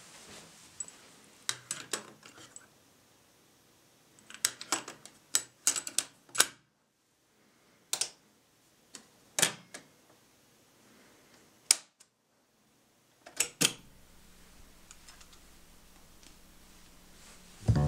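Scattered mechanical clicks and clunks of a Sony TC-177SD cassette deck being handled: a cassette loaded and its door shut, the tape-select switches flicked, and a transport key pressed. In the last few seconds a faint steady low hum follows.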